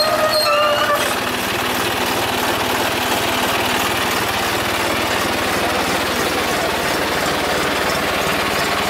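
John Deere 5210 tractor's three-cylinder diesel engine running steadily.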